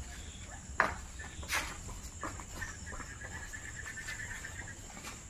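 Night insects chirping: a steady high trill, with a stretch of rapid pulsing chirps in the middle. Two short knocks sound in the first two seconds.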